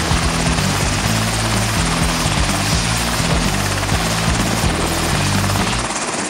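Helicopter rotor sound, a dense steady rush, over background music with a low, shifting bass line; the bass drops out shortly before the end.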